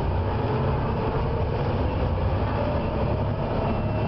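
Volvo B7TL bus running with a steady low engine rumble and a faint whine that rises slowly in pitch. This is the screeching on acceleration that the owner puts down to a squealing fan belt.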